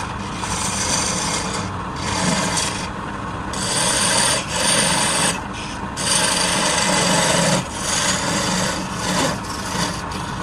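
Woodturning tool cutting into wood spinning on a lathe: a steady scraping cut that stops and resumes several times, over a low steady running hum.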